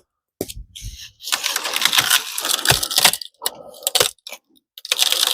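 Pocket chainsaw, a hand-pulled saw chain, rasping back and forth through wood in several uneven strokes with short pauses, the links rattling; the chain is binding in the cut.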